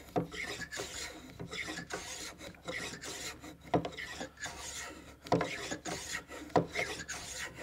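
Block plane shaving a wooden pencil blank held in a hexagon pencil-making jig, in a rapid series of short back-and-forth strokes, each a brief scrape of the blade cutting wood as one flat face of the pencil is planed.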